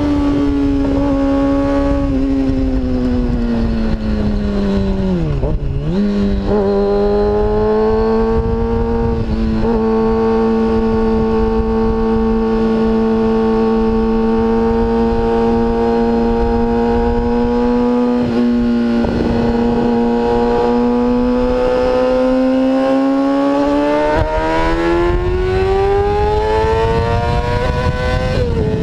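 Kawasaki Ninja sport bike engine heard from on board at speed. Its pitch drops and settles lower at a gear change about five seconds in, then holds steady while cruising. It rises steadily over the last few seconds as the bike accelerates, with a short dip at another shift near the end. Wind rush runs underneath.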